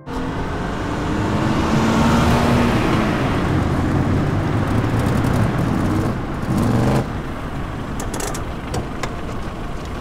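Small Renault Kangoo van driving up and pulling in to the curb, its engine running. The sound drops abruptly about seven seconds in and is followed by a few light clicks.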